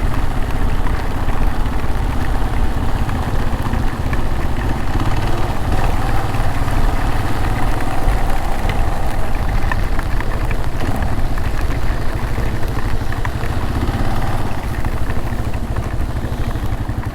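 Motorcycle engine running steadily while under way, with a steady noisy rush over it.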